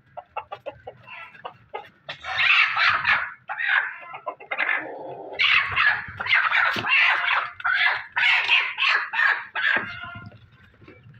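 Chickens squawking in a long run of loud, harsh calls during a rooster's mating chase of a hen, dying down near the end.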